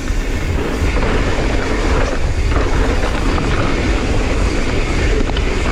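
Mountain bike descending a dirt trail: a steady wind rumble on the camera microphone, with tyre noise and the rattle of the bike over rough ground.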